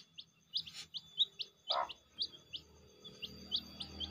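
Domestic village chicks (ayam kampung) peeping: short, high cheeps repeated about three to four times a second. A single lower call comes about two seconds in, and a low hum starts near the end.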